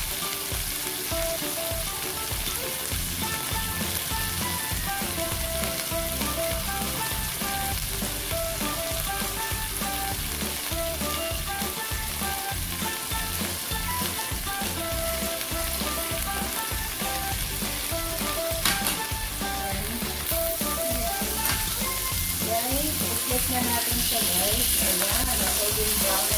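Ground pork patties frying in oil in a nonstick pan: a steady sizzle, with a single sharp click a little over two-thirds in. The sizzle grows a little louder near the end as one patty is turned over onto its paler side.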